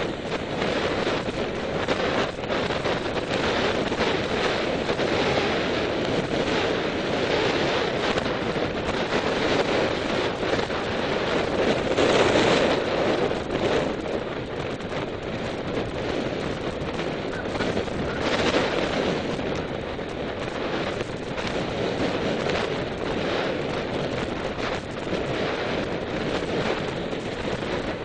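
Wind buffeting the microphone in a steady rush, with gusts that swell louder about twelve seconds in and again around eighteen seconds.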